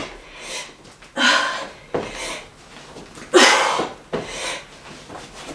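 Hard, breathy exhalations from a person exercising. About five short puffs, roughly one a second, as she works through burpees.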